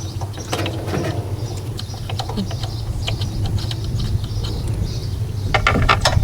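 Light clicks and taps of bolts and hand tools being handled while the last bolts are started on a generator's mixer assembly, with a quick cluster of clicks near the end, over a steady low hum.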